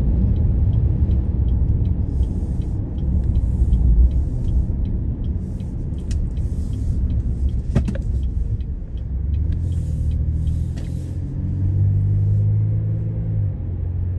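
Car on a wet road heard from inside the cabin: a low rumble of engine and tyres throughout. A regular ticking, the turn signal, runs through the first several seconds around the turn, with patches of tyre hiss. After the turn a steady engine hum comes in and fades out near the end.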